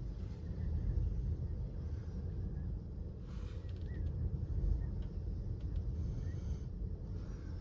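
Strong dust-storm wind buffeting the microphone: a heavy, uneven low rumble in gusts, with a brief rush of higher sound about three seconds in.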